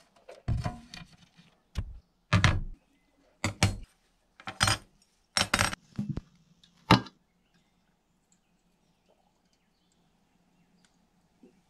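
A run of about seven sharp clinks and clattering knocks of small diecast metal parts and a tin can being handled and set down on a wooden board, over the first seven seconds.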